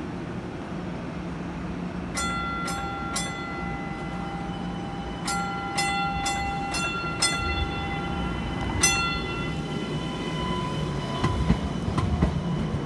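Maryland MTA light rail car's warning bell ringing in quick strokes, three then five then one more, each stroke ringing on and fading, over the steady low hum and rumble of the car as it pulls slowly past.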